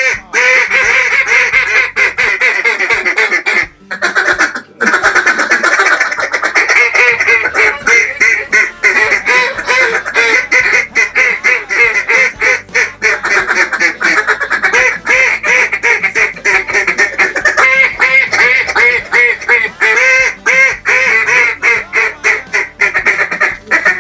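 Two Caney River custom duck calls blown together, a fast continuous stream of quacks and chatter with short breaks about four seconds in.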